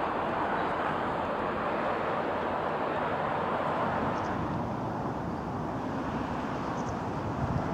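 Class 60 diesel locomotive working a train of loaded flat wagons past, engine running under load with a steady rumble of wheels on rail, getting a little quieter about five seconds in.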